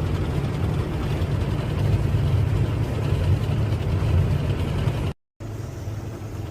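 Steady low drone of a semi truck's engine and road noise, heard inside the cab. It cuts out for a moment about five seconds in, then comes back a little quieter.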